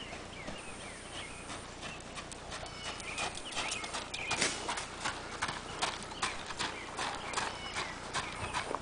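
A horse's hooves striking a gravel arena at a trot: a quick, uneven run of hoofbeats that grows denser and louder from about three seconds in.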